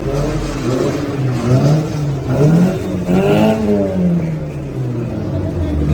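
Modified car engine revving in repeated blips, its pitch rising and falling several times, with the biggest rev about three seconds in.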